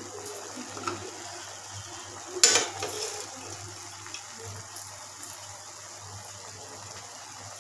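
Low steady hiss and hum from a kitchen cooking biryani, with one sharp clatter about two and a half seconds in.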